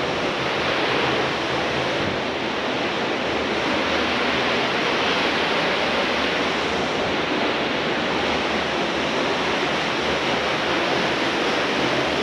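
Steady rush of flowing water: one even, unbroken roar.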